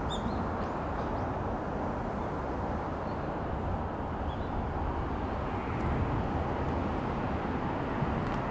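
Steady outdoor background rumble with no train passing, with a few faint, short high-pitched chirps near the start.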